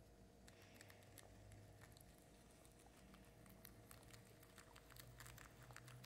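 Faint, rapid crisp clicks of a guinea pig biting and chewing kale leaves, coming thicker from about halfway in.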